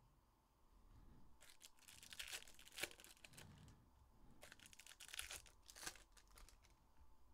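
Faint crinkling and tearing of trading-card packaging being opened by hand, in two spells of quick, crackly rustles.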